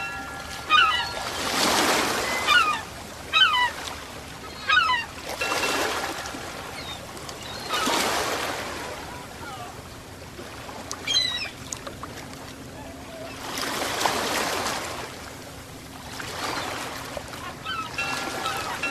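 Ocean waves washing in and breaking every few seconds, each rush swelling and fading. Birds call in short bursts of chirps, several in the first few seconds, once about eleven seconds in, and again near the end.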